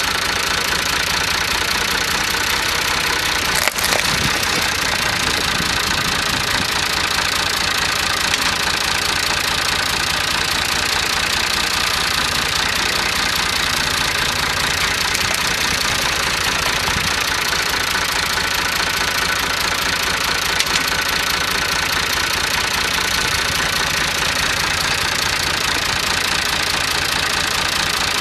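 Ford farm tractor engine idling steadily, with one brief knock about four seconds in.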